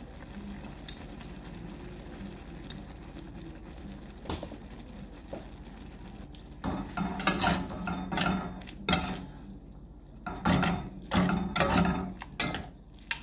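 Cooking noodles being stirred in a stainless steel pan with metal tongs, quietly at first. From about seven seconds in, a metal spatula and slotted spoon toss the noodles, scraping and clinking loudly against the pan.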